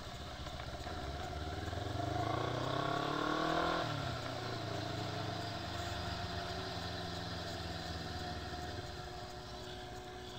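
Motorcycle engine accelerating, its pitch climbing for about two seconds and then dropping abruptly as it shifts up a gear, before running steadily at cruising speed.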